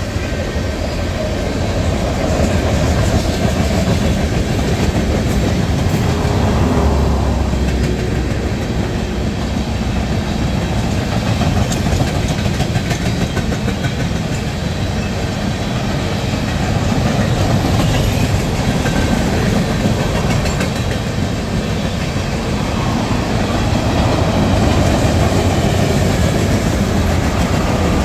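A train rolling past on steel rails, a steady rumble of wheels and cars that swells and eases several times.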